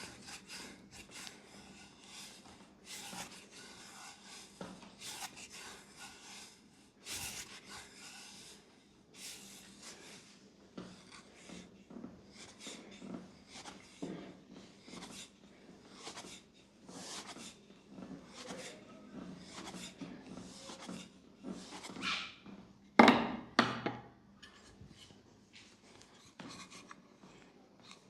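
Hands rubbing and kneading skin and hair in a head and neck massage: an irregular run of short rasping strokes. About three-quarters of the way through comes a louder cluster of two or three sharp slaps or knocks.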